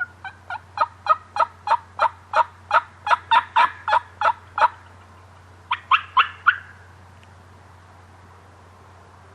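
Turkey yelping: a long run of about sixteen sharp, evenly spaced yelps, roughly three a second, then after a short pause a quicker run of four more about six seconds in.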